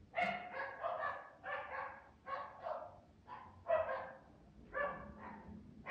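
A dog barking in a rapid series of about a dozen short barks, in quick runs of two or three.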